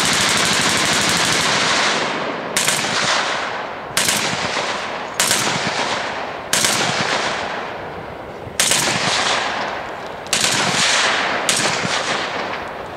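Machine-gun fire: an unbroken stretch of automatic fire for about two seconds, then about seven more sudden bursts one to two seconds apart, each tailing off before the next.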